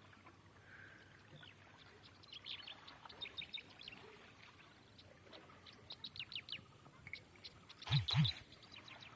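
Small birds chirping: quick runs of short, high chirps coming in clusters. About eight seconds in, two loud thumps in quick succession, the loudest sound here.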